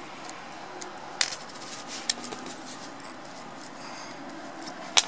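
Small metal washers clicking and clinking as they are worked off the end of a car starter motor by hand: a few separate sharp clicks, the sharpest near the end.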